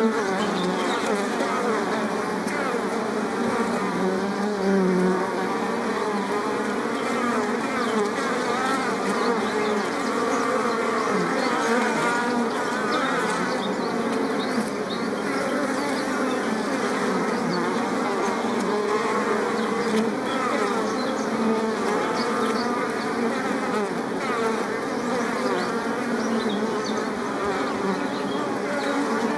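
Many bees buzzing at once, a steady dense hum of overlapping wavering wingbeat tones.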